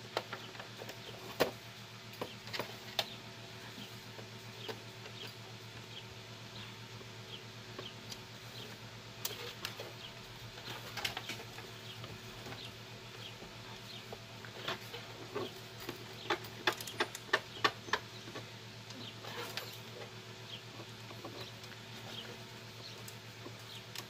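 Irregular light clicks and taps of a video cable's plug and fingers against a monitor's plastic back and ports while the cable is fumbled into place, with a quick run of them about two-thirds of the way in. A steady low hum runs underneath.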